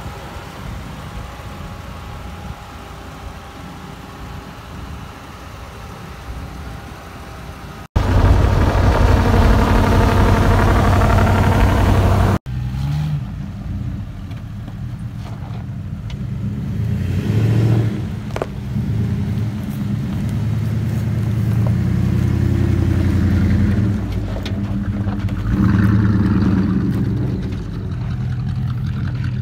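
Vehicle engines in a series of cut-together clips. A steady engine hum gives way to a few seconds of loud rushing noise, then a pickup truck's engine revs unevenly as it crawls up a rocky dirt trail, getting louder.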